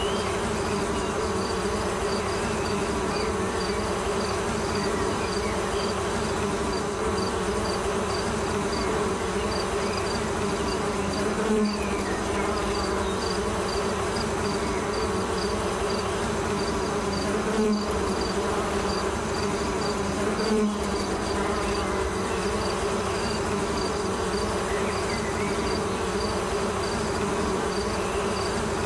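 A steady, insect-like buzzing drone with a faint regular ticking about twice a second, swelling briefly louder three times.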